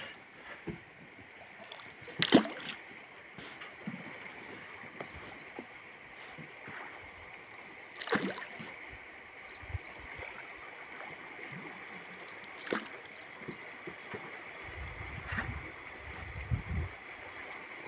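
A small canoe-like boat being paddled: water swishing and gurgling against the hull, with irregular splashes or knocks from the paddle strokes. The sharpest and loudest comes about two seconds in.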